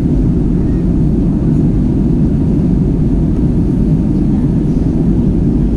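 Airbus A320-200 cabin noise in flight: a steady low rumble of engines and airflow heard from inside the cabin.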